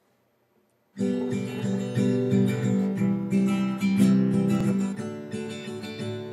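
Acoustic guitar strummed in a steady rhythm, starting about a second in after near silence: the instrumental introduction before the singing begins.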